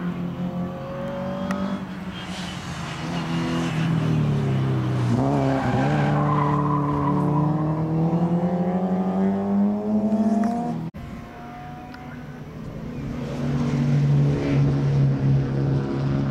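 Hatchbacks racing on a circuit: one car's engine pulls hard, its note dipping once and then climbing steadily for several seconds before cutting off suddenly about two-thirds of the way in. Another car's engine then swells in as it comes nearer.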